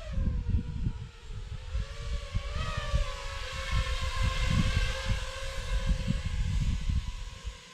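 FPV quadcopter's motors and propellers whining, the pitch wavering with the throttle and the sound dropping away near the end, with wind buffeting the microphone.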